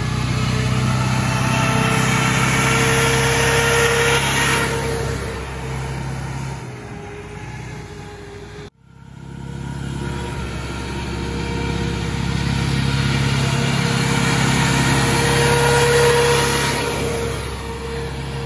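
Old military jeep's engine running hard as it laps a dirt track, growing louder and fading twice as it comes by. The sound cuts out abruptly for an instant a little before halfway.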